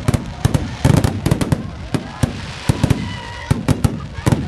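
Aerial fireworks bursting overhead: a rapid, irregular series of loud bangs and crackles, several a second.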